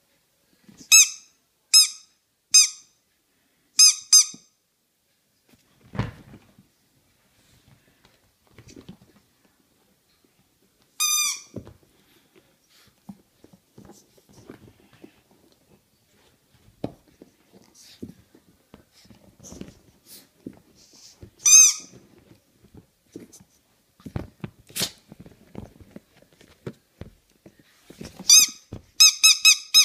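Rubber squeaky toy (a rubber eagle) squeaking: four quick squeaks about a second in, single squeaks about 11 and 21 seconds in, and a rapid run of squeaks near the end. Soft knocks and rustling come in between.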